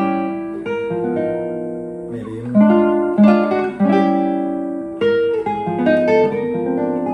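Nylon-string classical guitar played fingerstyle: a series of chords plucked and left ringing, a dominant chord voicing resolving to A minor.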